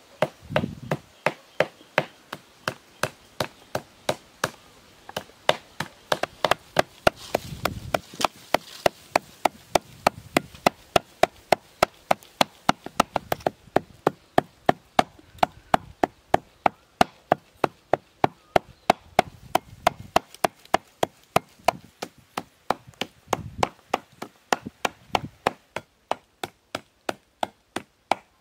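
A knife chopping food on a wooden board in a steady rhythm, about three to four strokes a second.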